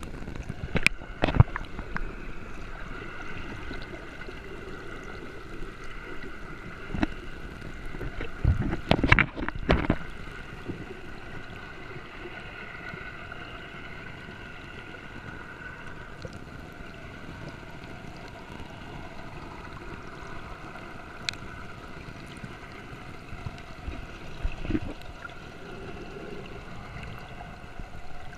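Steady hum of a boat motor with water noise, broken by a sharp knock about a second in and a burst of loud knocks and splashes about nine seconds in.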